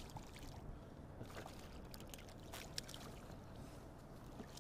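A small hooked fish splashing at the water's surface as it is reeled toward a kayak, with a few short sharp splashes and clicks, the loudest just under three seconds in, over a steady low rumble.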